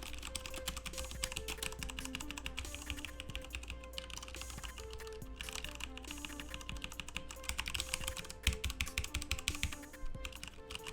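Rapid typing on a Corsair K70 LUX mechanical keyboard with Cherry MX Brown switches, a quick run of tactile key clicks, with background music underneath.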